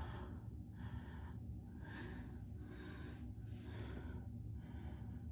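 Heavy breathing close to the microphone: about six noisy breaths in and out in a row.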